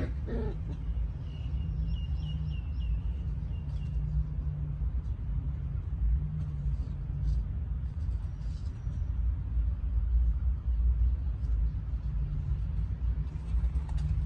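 Steady low outdoor rumble with a bird chirping a quick run of short high notes in the first few seconds.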